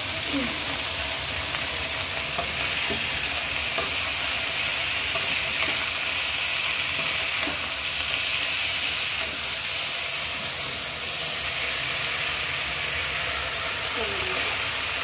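Fried potato strips with green pepper and onion sizzling in an aluminium kadai as a spatula stirs them: a steady frying hiss with light scrapes of the spatula against the pan.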